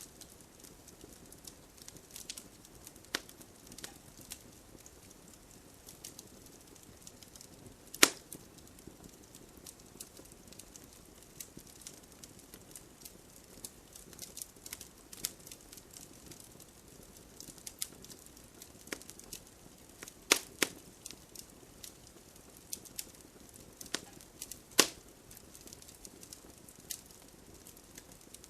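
Fire crackling: a soft steady hiss broken by irregular small pops and snaps, with a few sharper, louder pops about a third of the way in, past the middle and near the end.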